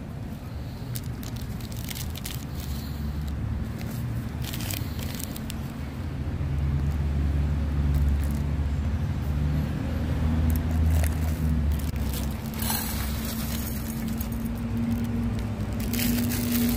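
Plastic and foil food packets crinkling and rustling as they are handled, over a steady low engine drone from a passing motor vehicle that grows louder in the middle.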